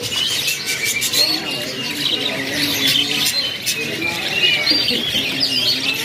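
Caged canaries chirping: many short, high calls overlapping, with wings fluttering.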